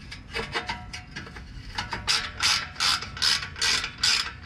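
Hand socket ratchet clicking as it is worked back and forth on an exhaust clamp bolt. The clicks are faint at first, then about two seconds in become louder strokes, about two or three a second, as the bolt is run in.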